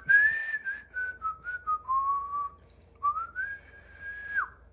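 A man blowing through pursed lips on a hot forkful of food to cool it, the breath whistling: one long breathy whistle that steps down in pitch, then after a short pause a second that rises and ends with a quick drop.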